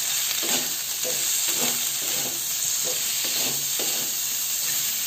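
Potato and pointed gourd pieces sizzling in hot oil in a metal kadhai, with a wooden spatula repeatedly stirring and scraping them against the pan.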